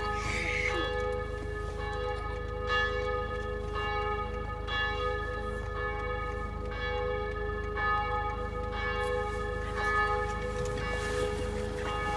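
Church bell ringing in a steady rhythm, about one stroke a second, its hum sounding on between strokes.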